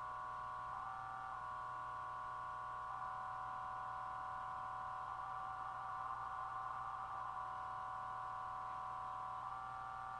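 Minimodem audio frequency-shift-keying signal from a Raspberry Pi 4 sending text at 400 baud: a continuous, high-pitched data warble switching between close pitches, its texture changing every second or two as different characters go out. A faint low hum lies underneath.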